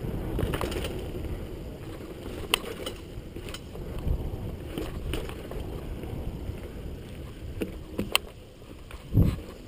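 Mountain bike ridden fast down a dirt trail: steady rumble of knobby tyres on dirt and wind on the camera mic, with sharp rattling clicks from the bike over bumps and a heavy thump about nine seconds in.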